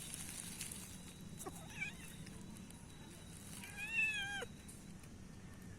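Domestic cat meowing: a faint short call about two seconds in, then one clear meow near the end that rises and falls away.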